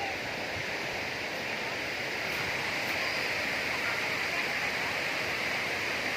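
Waterfall water rushing and splashing in a steady, unbroken roar of noise.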